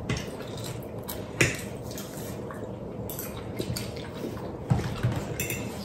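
Cutlery clinking and scraping on dinner plates during a meal: a few scattered light knocks, the sharpest about a second and a half in.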